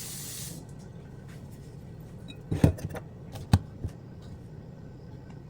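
A hiss stops about half a second in, then a kitchen knife knocks on a cutting board several times as a red pepper is cut, two knocks louder than the rest.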